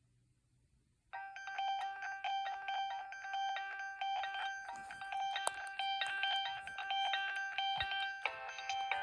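Nokia 2112 mobile phone playing one of its preloaded ringtones: a quick electronic melody of fast-changing notes over a steady held note. It starts about a second in, after a brief silence.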